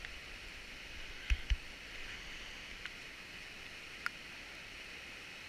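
Steady rush of a fast glacier-fed whitewater river over boulders, with two dull thumps a little over a second in and a couple of faint clicks.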